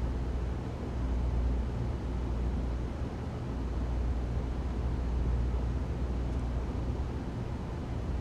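Ventilation system running: a steady airy noise over a deep, constant low rumble with a faint hum.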